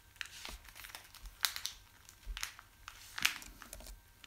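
A pet bird pecking and pulling at a plastic bag of jellybeans, trying to get it open: irregular crinkling and rustling of the plastic, with a few sharper crackles.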